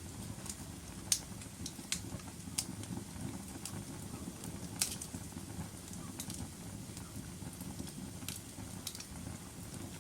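Wood fire burning in a fireplace: a steady low rumble of flames with scattered sharp pops and crackles, two of them louder, about a second in and near the middle.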